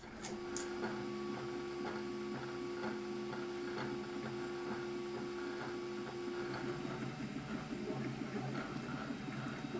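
Desktop FDM 3D printer running a print: the stepper motors whine with a few steady tones over a background hum as the print head moves, and the tone changes about seven seconds in as the motion changes.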